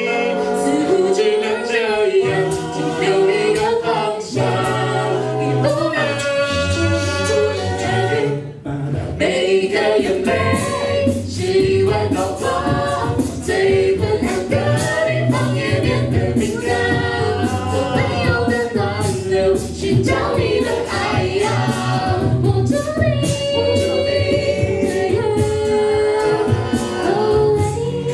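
A cappella vocal group singing in several parts, male and female voices together. A low sung bass line comes in about four seconds in, and after a short break near the middle a steady vocal-percussion beat runs under the harmonies.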